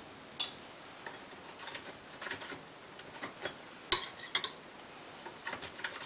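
A metal putty knife clinking and tapping against a ceramic bowl as it is dipped, in scattered light taps with one louder clink about four seconds in.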